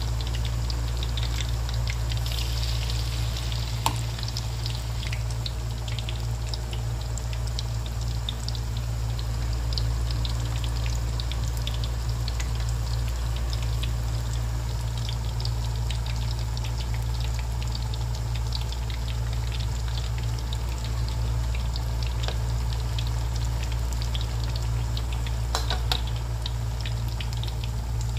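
Flour-battered tempeh slices deep-frying in hot oil in a wok: a steady sizzle full of small crackles and pops, over a constant low hum.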